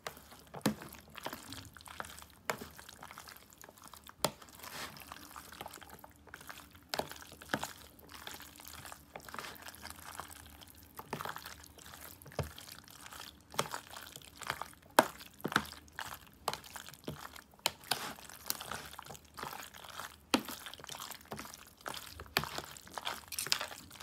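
Spoon stirring pasta through a mayonnaise dressing in a plastic tub: wet squishing with irregular clicks and knocks of the spoon against the plastic.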